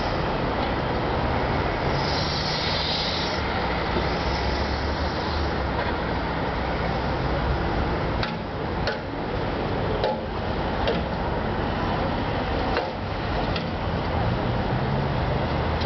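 Steady rumble of road traffic and running engines, with a handful of sharp knocks in the second half.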